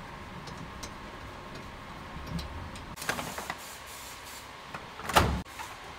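Hand tools being worked and handled at a brake caliper and in a tool-chest drawer: light clicks, a scraping rustle about three seconds in, and a sharp knock just after five seconds, over a faint steady hum.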